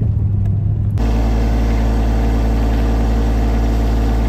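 Truck engine and road rumble heard inside the cab for about a second. Then a sudden change to a steady idling engine, a John Deere compact tractor's diesel, running evenly.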